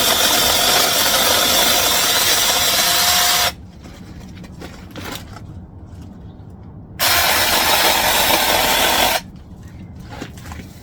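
Small battery-powered mini chainsaw running while cutting into a branch, in two bursts: one of about three and a half seconds at the start, then another of about two seconds around seven seconds in. Quieter clicks and rustling come between the bursts.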